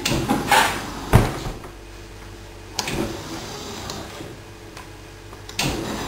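Electric drive motors of a home-built remote-control lawn mower running in short spurts as it is driven and turned, with knocks from the machine and a sharp thump about a second in.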